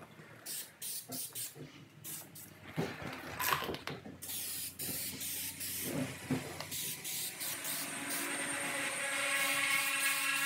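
Aerosol can of spray adhesive shaken with short rattles, then sprayed in a long continuous hiss from about four seconds in.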